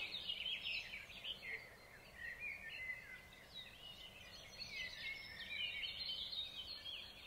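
Small songbirds singing in a pre-dawn chorus: many faint, overlapping short chirps and quick whistled glides, with no single bird standing out.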